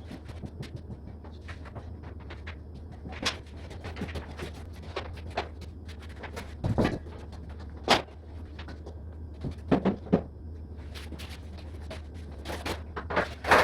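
Irregular knocks and clunks of hard objects being handled, a few louder ones near the middle and end, over a steady low hum.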